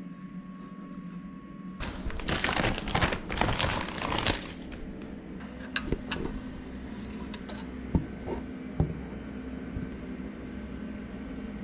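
Handling noises: about two seconds of loud crinkling and rattling, then scattered clicks and knocks as the mower's oil fill cap is taken off and an oil bottle's spout is set into the filler neck.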